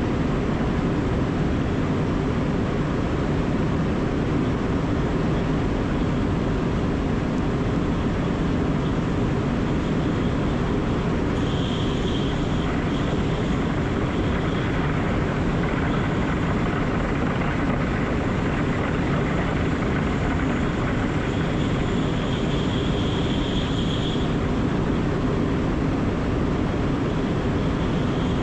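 Class 471 electric multiple unit running along the line: a steady rumble of wheels and running gear, with a faint high whine coming in twice, briefly.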